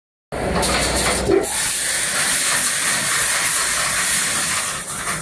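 Wire mesh welding machine running: a steady, loud hiss with a single knock about a second in.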